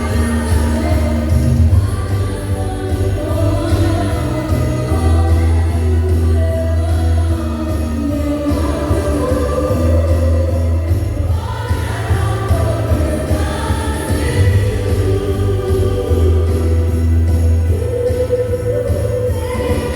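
Music: a song with jingle bells and choir voices singing over a heavy bass line.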